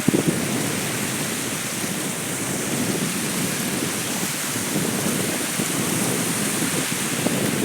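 Steady rushing noise of ocean surf washing on the beach.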